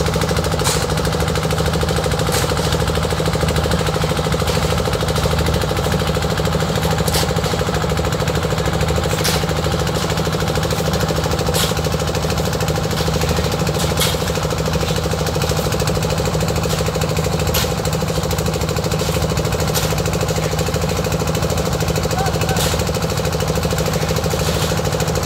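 Engine of a portable concrete mixer running steadily with a knocking beat, with occasional sharp clicks over it.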